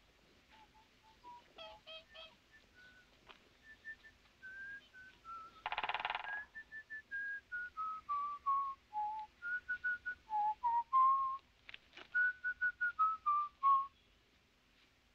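Whistling: a wandering tune of clear single notes, some held, some sliding up or down, rising and falling in pitch. About six seconds in comes a brief burst of rapid tapping.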